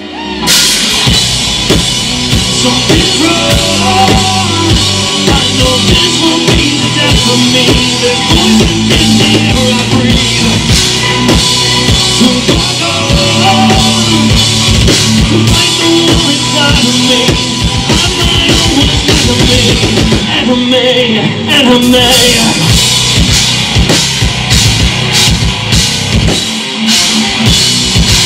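Live rock band playing: electric guitars, bass and a drum kit. The music comes in abruptly at the start, and the cymbals drop out for a couple of seconds about twenty seconds in before the drums come back.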